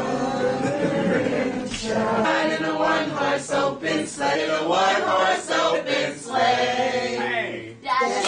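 Choral singing: several voices singing together, mostly unaccompanied.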